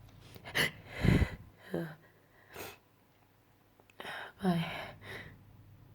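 A person with allergies and a cold breathing, sniffing and making short voiced sighs, in a handful of separate bursts. The loudest burst comes about a second in, and there is a short quiet gap past the middle.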